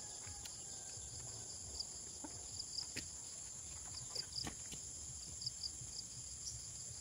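Insects calling in a constant high-pitched drone, with runs of short repeated chirps over it and a few faint clicks.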